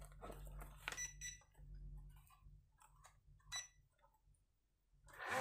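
Small toy-drone radio transmitter (from a JJRC H36 quadcopter) being switched on and paired: faint clicks of its switch and sticks, with two short electronic beeps, about a second in and again past the middle.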